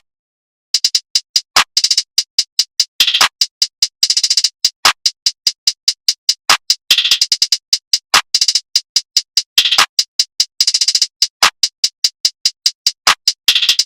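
Electronic music intro: a drum-machine pattern of short, sharp clicking hits, about four to five a second, with longer hissy hits every second or so.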